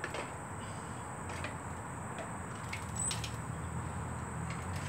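A few faint clicks and knocks as a folding bicycle pedal on a Cyclamatic CX2 is pushed in and folded down, over a low steady rumble.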